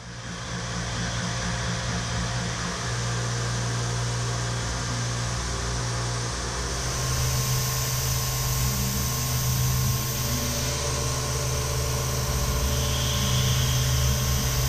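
Tormach PCNC 770 CNC mill spindle running a small end mill through aluminium on an adaptive slotting pass, a steady machining hum with hiss. A higher hiss joins about halfway through.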